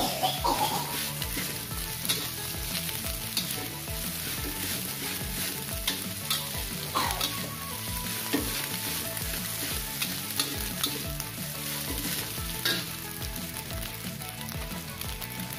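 Fried rice sizzling in a hot steel wok while a metal spatula stirs and tosses it, with scattered sharp scrapes and clinks of the spatula against the wok.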